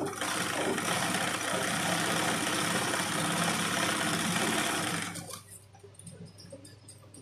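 Electric sewing machine running at speed for about five seconds while stitching embroidery on hooped fabric, then slowing to a stop.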